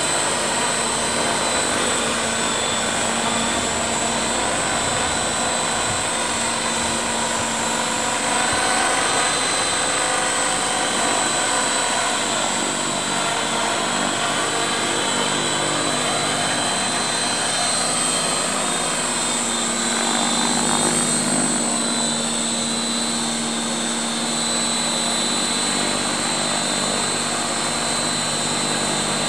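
Electric CopterX 500 SE radio-controlled helicopter in flight: a steady whine of motor and spinning rotor blades, its pitch wavering slightly as it manoeuvres.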